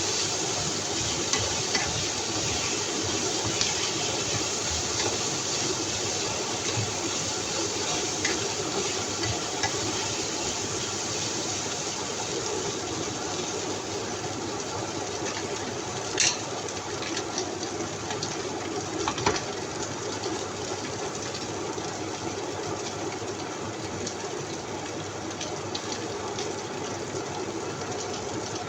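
Food cooking in a pan: a steady sizzling hiss dotted with small crackles, with two sharper clicks about two thirds of the way through.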